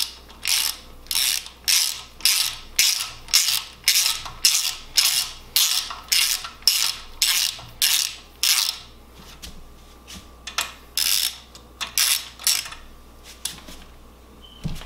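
Hand socket ratchet clicking in quick repeated strokes, about two a second, as the bedplate bolts of a BMW N54 engine block are run down snug before torquing. The strokes pause around two-thirds of the way through, then come again briefly, with a few lighter clicks near the end.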